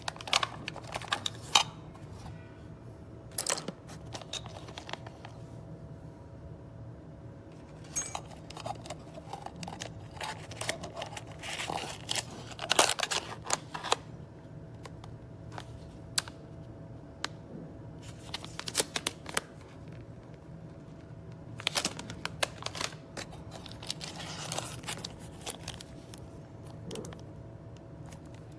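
Hands handling small hardware parts and packaging: scattered light clicks, taps and bouts of rustling and crinkling, with quieter gaps, over a faint steady electrical hum.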